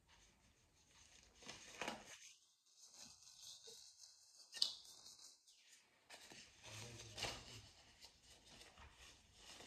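Faint rustling of disposable gloves being handled and pulled on, with one short sharp click a little under halfway through.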